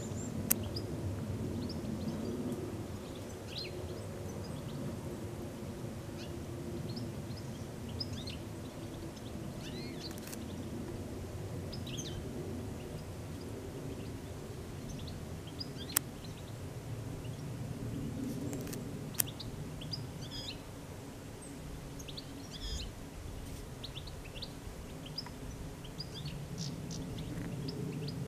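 Small birds chirping in short, scattered calls over a steady low background rumble. Three sharp clicks come through, about half a second in, about sixteen seconds in and about nineteen seconds in.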